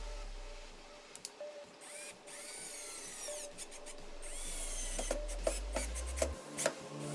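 Cordless drill/driver driving screws into a fibreboard back panel: the motor whines, rising in pitch as it spins up about two seconds in, with a few sharp clicks near the end.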